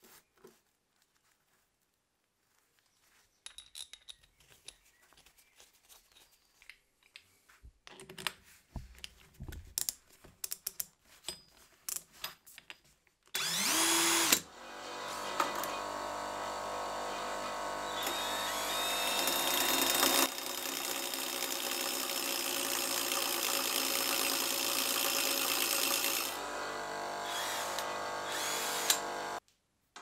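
Light metal clinks and handling noises. Then, about thirteen seconds in, power tools start: a Scheppach cordless drill spins a nut on a threaded rod against a running Scheppach bench grinder wheel. It makes a loud, steady whine that shifts in pitch a few times and stops suddenly near the end.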